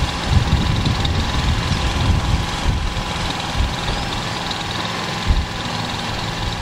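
A car engine idling steadily, with a rough, uneven low end.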